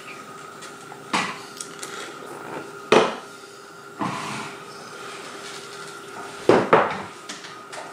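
Hard knocks and clatters of a small aluminium-frame CNC machine being handled and shifted on a wooden tabletop: five separate knocks, the last two close together near the end.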